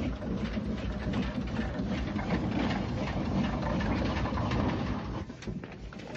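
Aveling and Porter geared steam locomotive, a traction engine on rails, running with a rapid mechanical clatter and low chuffing; the sound falls away about five seconds in.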